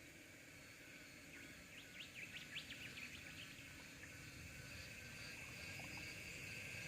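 Faint outdoor ambience: insects droning in a steady high buzz that grows louder over the second half, with a bird giving a quick run of chirps in the first half.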